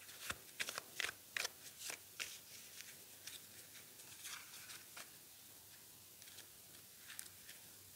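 Tarot cards being handled and dealt: a quick run of sharp card clicks over the first couple of seconds, then fainter, scattered taps as cards are laid one at a time on the table.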